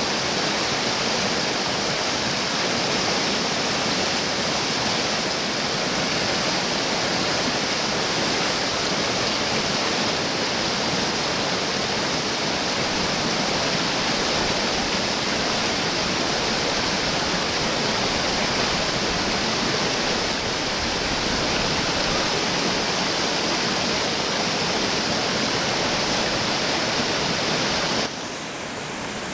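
Steady rush of river water pouring over rock ledges in small waterfalls, dropping a little quieter near the end.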